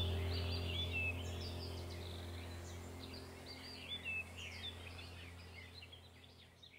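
Faint birds chirping over a steady low hum, both fading out to silence near the end.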